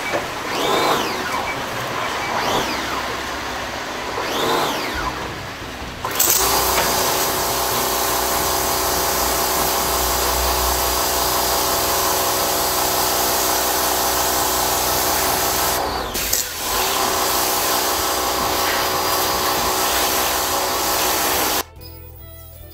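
High-pressure washer blasting moss and grime off a concrete floor: the pump motor runs with a steady whine under the hiss of the water jet. It starts sharply about six seconds in, drops out for a moment about two-thirds of the way through, and cuts off suddenly near the end.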